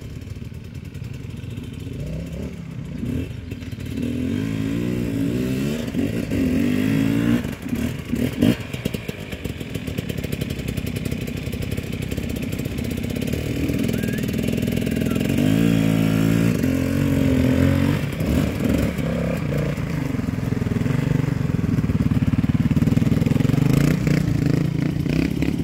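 Enduro dirt bike engines revving on a steep hill climb, the pitch surging up and dropping back in repeated bursts over a steady running note, with a sharp knock about eight seconds in.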